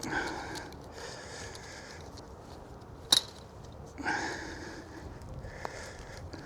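Breathing, with noisy breaths near the start and about four seconds in, and a single sharp click a little after three seconds from hand work on the fence wire.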